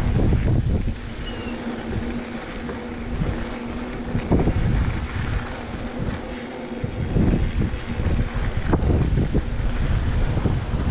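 Wind buffeting the microphone in uneven gusts, with a faint steady hum during the first four seconds.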